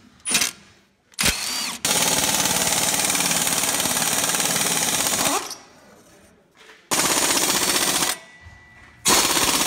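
Impact wrench hammering on a bolt in three bursts: a long run of about three and a half seconds, then two shorter ones.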